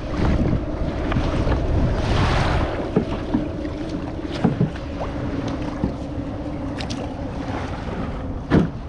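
Wind buffeting the microphone over small waves lapping at a plastic sit-on-top kayak as it floats off the beach, with scattered short knocks of gear and paddle against the hull and one sharper knock near the end.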